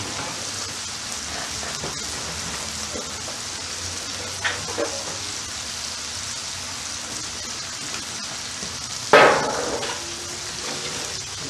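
Skirt steak, onions and peppers sizzling steadily on a flat-top griddle. About nine seconds in there is one loud clatter that fades over about a second, as a disposable aluminium foil pan is set down on the steel counter.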